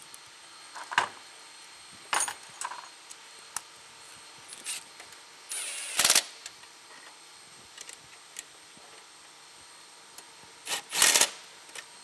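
Cordless ratchet running in bolts in two short bursts, one about six seconds in and one near the end, with light metallic clicks and clinks of tools and parts between them.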